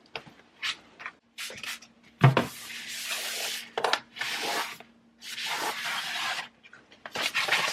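Items being handled in a kitchen cabinet: a few knocks as things are set down, the loudest about two seconds in, and several rubbing sounds about a second long each.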